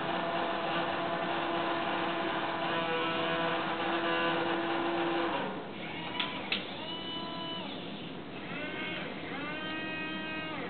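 Servo motors of a small robotic arm whining as the arm moves: a steady hum for about five seconds, then two sharp clicks, then three short whines that rise, hold and fall in pitch as the joints swing out and the gripper opens.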